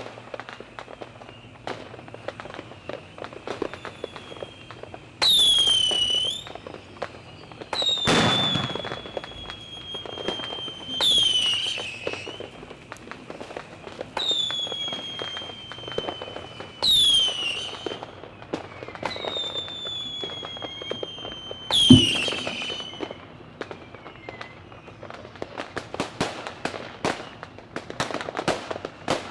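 Fireworks going off: a series of shrill whistles, each starting high and falling in pitch, about every three seconds, over steady crackling pops. There is one sharp bang about two-thirds of the way through, and the crackling grows dense near the end.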